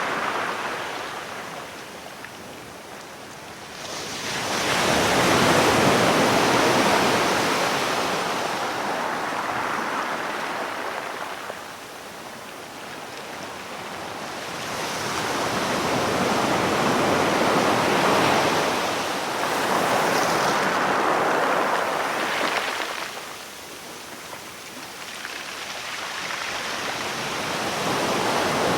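Sea waves breaking and washing up the shore, the surf noise swelling and receding in slow surges several seconds apart.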